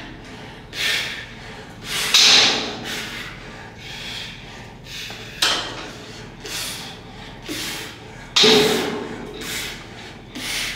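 Repetitions on a chest press machine: the weight stack knocking and the lifter's forceful breaths, in separate bursts about one every second or so, two of them starting sharply.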